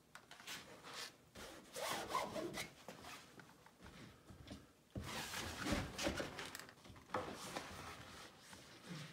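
A clothes iron rubbing and scraping as it is pushed over taut Dacron boat-skin fabric to heat-shrink it, with the fabric rustling and crinkling in irregular strokes. The rubbing gets louder suddenly about five seconds in.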